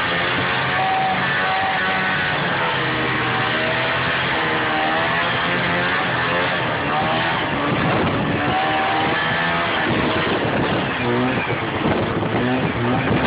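Snowmobile engine running under way, its pitch rising and falling as the throttle changes, over a steady noisy rush.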